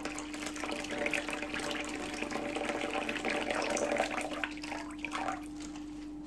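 Cold water poured in a thin stream into a small glass bowl, splashing and filling it, the pouring stopping about five seconds in.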